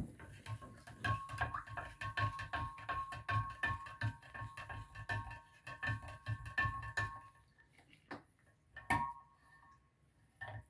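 A stirrer clinking against the sides of a large glass jar of salt solution as it is stirred briskly, each strike leaving the glass ringing. The stirring stops about three-quarters of the way through, and a few single knocks against the jar follow.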